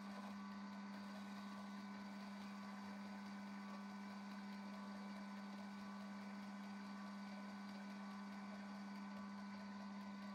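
Small metal lathe running with its three-jaw chuck spinning: a steady hum with one strong low tone and fainter higher tones above it.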